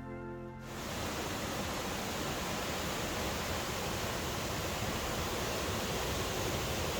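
Loud, steady rushing of a rain-swollen mountain river in full spate, with background music fading out in the first second.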